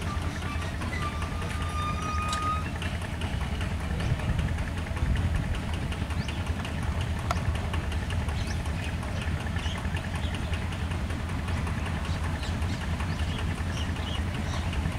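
Diesel locomotive 6535 hauling a heavily loaded freight train at slow speed, its engine running with a steady low drone.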